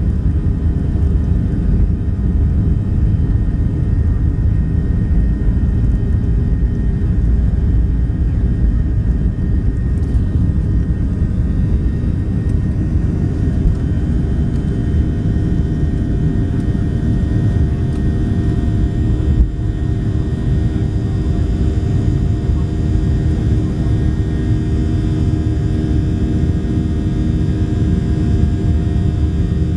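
Boeing 737-700's CFM56-7B turbofan engines at takeoff thrust, heard from inside the cabin over the wing: a loud, steady roar with several steady tones on top, running through the takeoff roll and on into the climb after liftoff.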